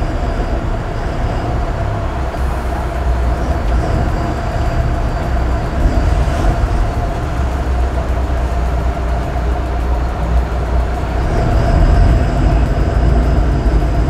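Twin Volvo Penta IPS drive engines running steadily at low revs while the boat is manoeuvred on the joystick: a low rumble with a steady hum over it, swelling a little near the end.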